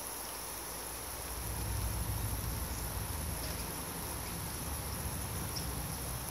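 Steady hiss of falling water spray over a steady high insect drone, with a low rumble coming in about a second in.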